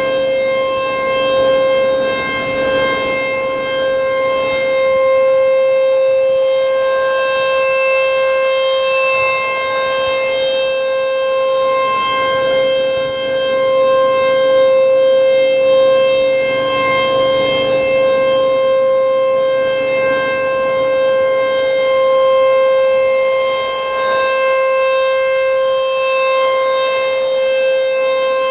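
American Signal T-128 outdoor warning siren sounding a steady single tone at full pitch. Its loudness swells and fades every several seconds as the rotating siren turns.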